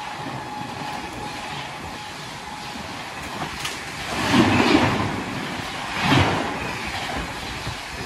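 A superfast express's LHB passenger coaches pass close by at about 130 km/h: a steady rush of wheels on rails and air, with two louder surges of clatter, about four seconds in and about six seconds in.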